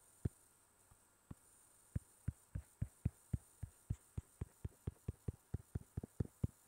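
A run of dull taps on a tablet's touchscreen, picked up by the tablet's own microphone: a few scattered taps, then about two seconds in a steady patter of about four a second that speeds up slightly near the end, over a faint hum.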